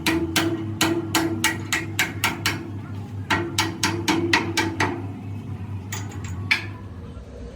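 Hammer striking metal in a quick, even run of blows, about three or four a second, each with a short metallic ring. The run stops about five seconds in, and a few last strikes follow about a second later over a steady low hum.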